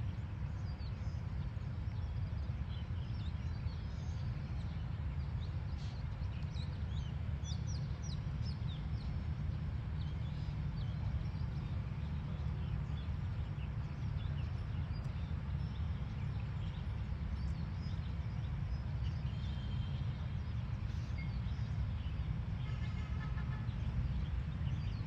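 Small birds chirping in short high calls, thickest several seconds in, with a run of quick repeated notes near the end, over a steady low outdoor rumble.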